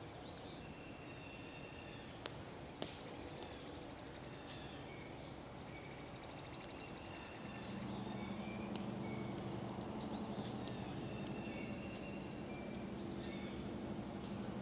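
Small birds chirping and calling with short high notes, and two sharp pops between two and three seconds in. About halfway through, a steady low engine hum comes in and becomes the loudest sound.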